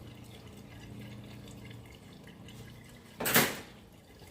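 Liquid being poured into a car's windscreen washer reservoir, with one brief, loud rush about three seconds in.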